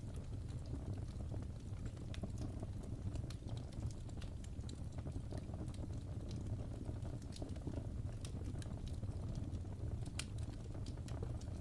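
Wood fire burning in a fireplace: a steady low rumble of the flames with scattered sharp crackles and pops of the burning wood.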